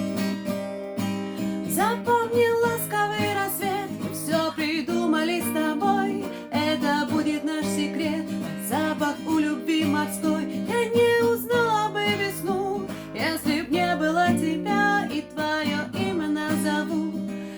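Acoustic guitar being strummed, with a woman singing over it.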